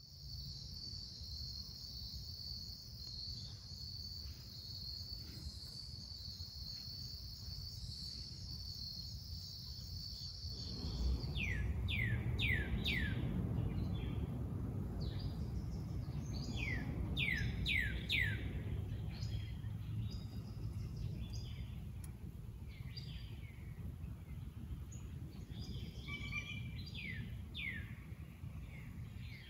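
Outdoor nature ambience. For about the first ten seconds there is a steady high-pitched drone. Then the sound changes abruptly to a low rumble with birds singing: runs of quick, downward-slurred whistled notes, several in a row, repeated a few times.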